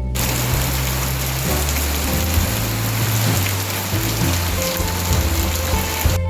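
Steady rain hiss with soft background music underneath, its low bass notes changing every second or two.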